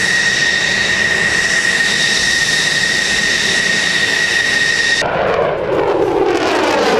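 F-16 Fighting Falcon's single jet engine running on the ground, a steady high-pitched whine over its rush. About five seconds in it cuts to the rushing roar of an F-16 passing in flight, with a sweeping pitch.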